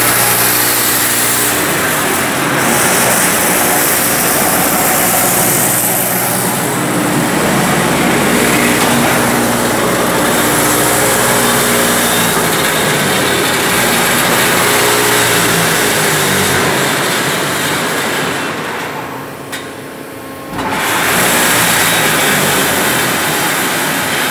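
Eurobend coil-fed rebar straightening-and-cutting machine running: a loud, steady mechanical drone with a hiss over it. It drops away for about two seconds late on, then comes back at full level.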